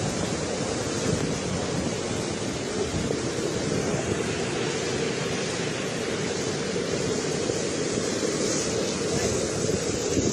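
Steady rush of a river running in flood, swollen by storm rain.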